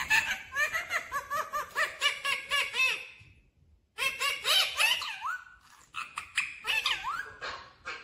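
Ring-necked parakeet chattering in quick runs of short, high, pitched calls that rise and fall, in three bouts broken by brief pauses.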